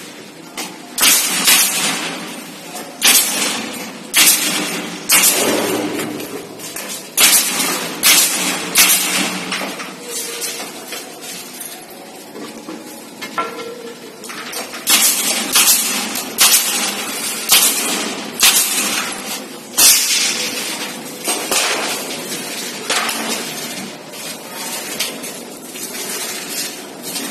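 Nail gun firing into plastic ceiling panels: repeated sharp clacks, mostly one or two a second, in uneven clusters, each with a short ring.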